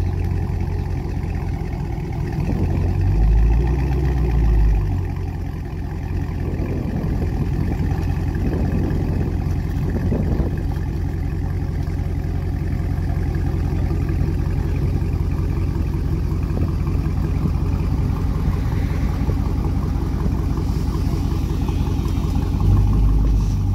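Car engine idling with a steady low rumble that swells about three to five seconds in and again near the end.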